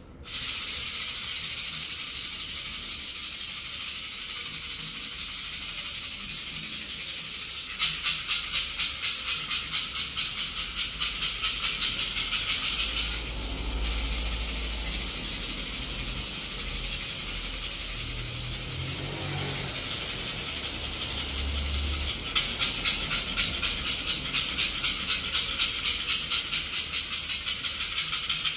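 A hand rattle shaken with a steady hiss, breaking twice into rhythmic shaking at about three strokes a second: once about a third of the way in for several seconds, and again through the last quarter.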